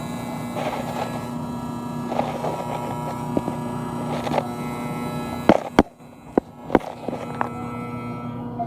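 Refrigeration compressor unit running with a steady buzzing hum, which the owner blames on the fan motor. A few sharp knocks come between about five and a half and seven seconds in.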